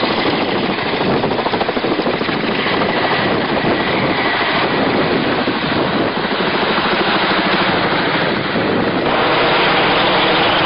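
Helicopter running close by: fast rotor chop with a faint steady high whine. It gets a little louder about nine seconds in.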